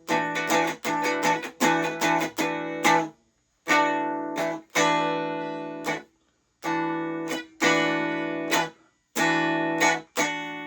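Stratocaster electric guitar strumming chords through an amp with a bright, trebly tone. It plays quick, short chops for the first few seconds, then longer ringing chords, each cut off sharply. The tone is set with the bridge pickup and the tone knob for a Telecaster-like sound.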